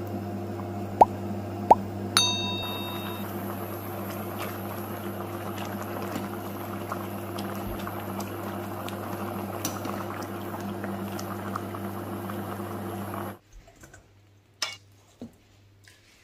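Water boiling in a pan of blanching broccoli florets, with a steady hum underneath. A stainless perforated skimmer clinks against the pan twice about a second in, and a third clink just after rings briefly. The boiling cuts off suddenly near the end, leaving a few soft knocks as the drained broccoli drops into a mesh strainer.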